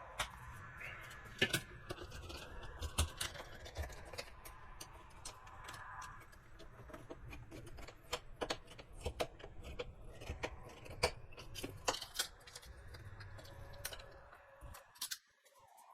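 Irregular sharp clicks and light taps of hand tools and plastic parts being handled during reassembly under the hood, over a low rumble.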